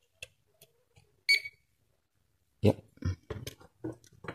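Handling noise from a bare metal-framed LCD panel being picked up: a few light clicks, a brief high ring about a second in, then a run of knocks and rattles in the second half.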